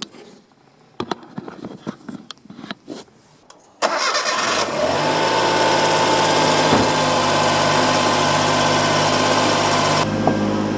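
A few clicks and knocks, then about four seconds in the Suzuki Cappuccino's three-cylinder engine is cranked and fires within a second, settling into a steady idle. A hissing layer over the idle stops near the end.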